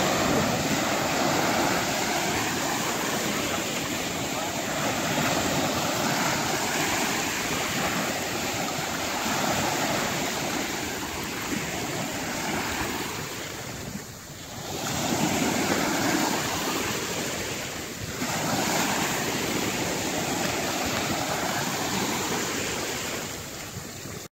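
Sea surf breaking and washing up the beach in a steady rush, with wind buffeting the microphone.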